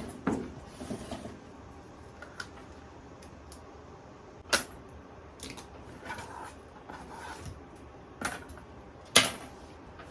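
Small clicks, taps and rustling from handling double-sided adhesive hinges and peeling off their red backing tape, with a few sharper clicks about halfway and near the end.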